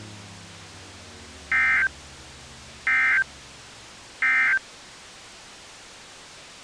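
Emergency Alert System end-of-message tones: three short identical bursts of the warbling SAME digital data signal, a little over a second apart, marking the end of the alert. A faint steady hiss runs underneath.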